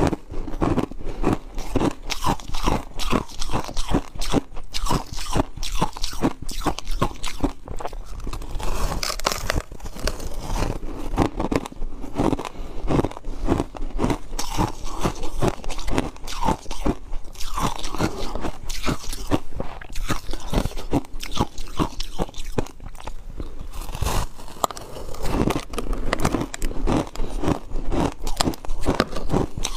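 Close-miked crunching of a block of ice coated in matcha powder being bitten and chewed: a continuous run of sharp cracks and crunches, several a second.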